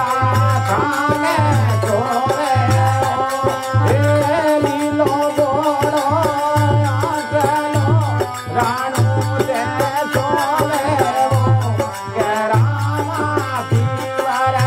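A male folk singer singing a Marwari fagan (a Rajasthani Holi song) with a wavering melody, over steady held accompaniment notes and a regular hand-drum beat.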